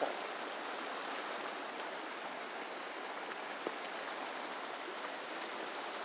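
River water flowing steadily over rocks, an even rushing wash with one faint click about two-thirds of the way through.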